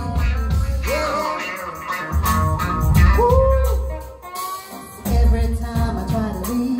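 Live soul band playing between sung lines: bass guitar, drums, keyboards and electric guitar, with a few short sung vocal notes. The band drops back briefly about four and a half seconds in.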